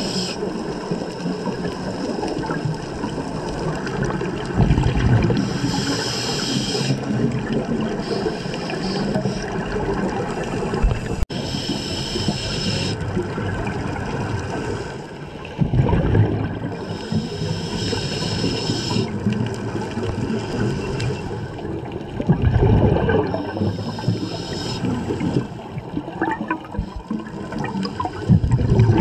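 Scuba diver breathing through a regulator underwater: a hiss on each inhale and a rush of bubbles on each exhale, repeating about every six seconds.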